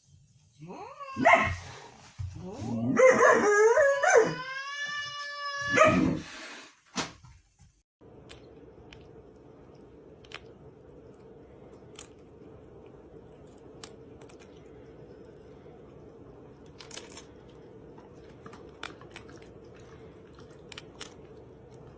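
A dog barking and howling for about seven seconds, ending in one long wavering howl. After that only a low steady hum remains, with scattered faint clicks.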